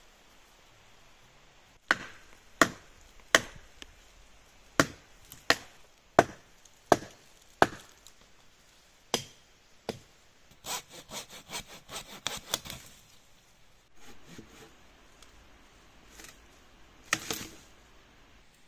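Wood being worked by hand: about eight sharp blows on wood in an even rhythm, roughly one every 0.7 seconds, then two more blows. A quick run of cracks and scrapes follows, with a last loud crack of wood near the end.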